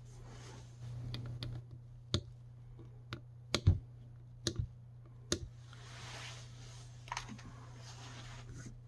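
Scattered sharp clicks and light knocks, irregularly spaced, the loudest about three and a half seconds in, over a steady low hum.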